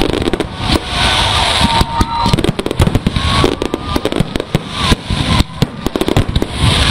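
Aerial fireworks going off in quick succession, a dense, unbroken run of bangs and crackles.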